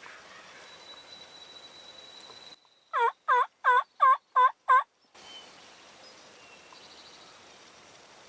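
A series of six loud turkey yelps, about three a second, each note dipping and rising in pitch.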